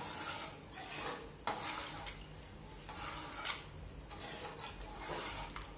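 A steel spoon stirring watery curry in an aluminium pot, scraping and sloshing, with a few sharp clinks of the spoon against the pot.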